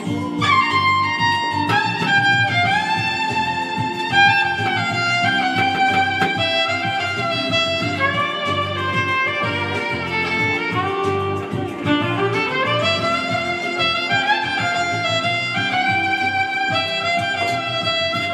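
Violin playing a melody with slides between notes over a steady accompaniment, including a long upward glide near the middle.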